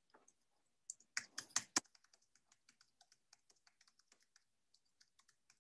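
Typing on a computer keyboard: a burst of louder key clacks about a second in, then a run of light, quick keystrokes.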